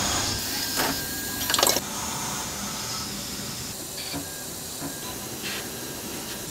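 Tornos Swiss-type CNC lathe turning a brass part: a steady machine hiss and whir, broken by a few short sharp clicks and rattles. The loudest of these comes about one and a half seconds in.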